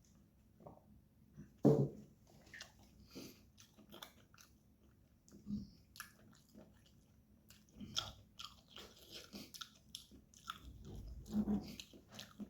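A person chewing food with irregular wet smacks and clicks of the mouth, a few louder bites or swallows about two, five and a half, eight and eleven seconds in.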